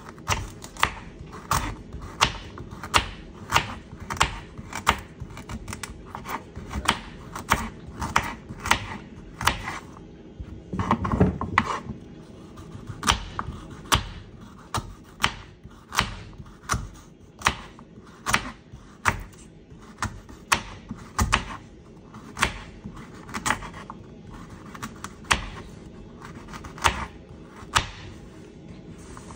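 Kitchen knife slicing a raw carrot into rounds on a bamboo cutting board: a steady run of sharp chops of the blade on the wood, about two a second, with a short louder scuffle about eleven seconds in.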